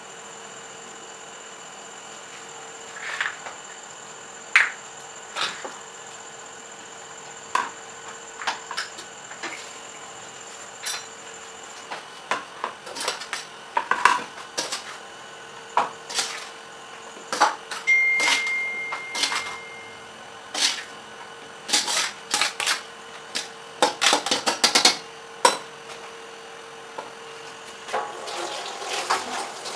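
Scattered clinks, knocks and scrapes of kitchenware being handled on a stone counter: a steel spoon, a stainless steel colander and a plastic bowl as boiled vegetables are moved between them. The knocks grow busier toward the end, over a faint steady hum.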